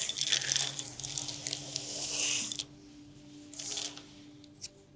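Small letter tiles clicking and sliding against one another on a tabletop as hands shuffle them, a dense clatter that thins out after about two and a half seconds, with one brief flurry later.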